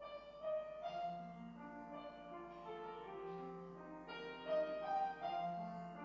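Piano playing the slow introduction to a choir anthem, chords with a melody line above them, beginning suddenly from silence.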